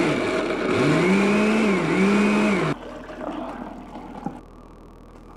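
Countertop blender motor running loudly as it churns a thick mix of chips and soda, its pitch swinging up and down, then cutting off abruptly under three seconds in, followed by fainter handling sounds.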